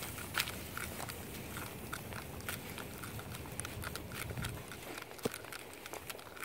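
Footsteps crunching through dry fallen leaves on a trail, with small irregular crackles and snaps.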